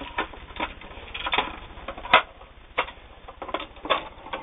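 Irregular clicks and knocks of a sewing machine's plastic accessory box and its bobbins and presser feet being handled, as the box is put back onto the machine. A few louder knocks come near the middle and toward the end.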